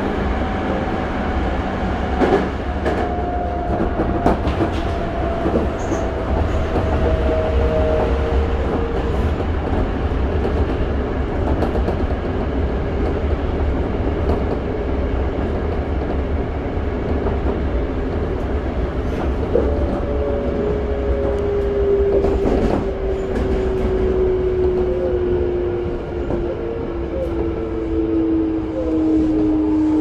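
Interior running noise of a Toei 5300-series subway car with Mitsubishi GTO-VVVF traction equipment: a steady rumble of wheels on rail with a few sharp rail-joint clicks. A thin motor whine slides slowly down in pitch near the start, and a lower one does the same over the last ten seconds.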